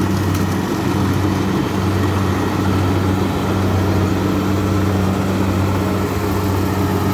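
Kubota DC60 rice combine harvester running steadily under load as it cuts and threshes rice, its diesel engine giving an even, unbroken hum.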